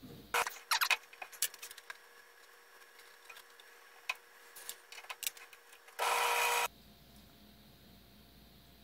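Small bench metal lathe running with a faint steady whine, with clicks and knocks from the carriage and handwheels. About six seconds in there is a brief loud hissing rasp as the tool takes a light cut of about fifteen thousandths on a brass rod, which stops abruptly.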